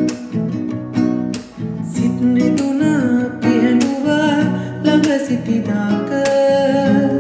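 A man singing along to his own strummed acoustic guitar, with regular strums under the gliding vocal line.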